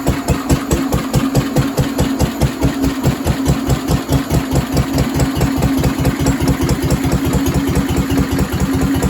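Vintage Lister D single-cylinder stationary engine running steadily, its exhaust thumping in a fast, even beat under a steady hum.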